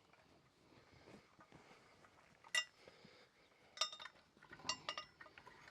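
About five sharp metallic clinks with a brief ringing tone, the last three in quick succession near the end, over faint handling noise.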